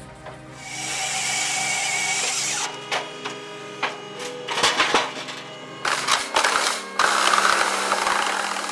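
VSP 60.60 firewood processor at work: a steady high hiss of machinery for about two seconds, then a run of sharp cracks and knocks as the log is split, over background music.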